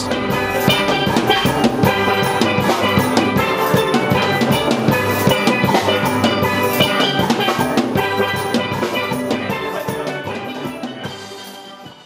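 Closing music with rapid percussive strikes, fading out over the last few seconds.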